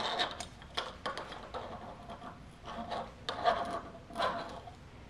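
Fork damper assembly being slid down into the oil-filled fork tube of a 2014 Suzuki GSX-R750: soft scraping and rubbing of metal parts with a few light clicks.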